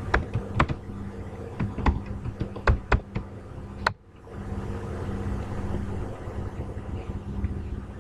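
Computer keyboard typing: an uneven run of sharp keystrokes, the last just before four seconds in, as the command is entered. A steady low hum fills the rest.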